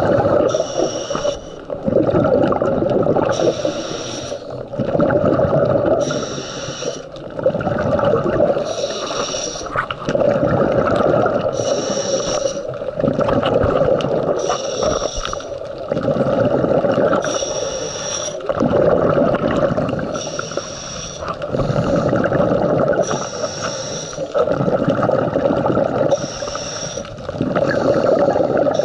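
A scuba diver breathing through a regulator underwater: a short hissing inhale through the regulator, then a longer rush of exhaled bubbles, repeating steadily about once every three seconds.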